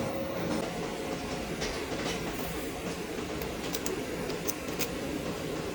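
Orbital TIG welding machine running: a steady low mechanical noise with a faint hum and a few light ticks in the middle seconds.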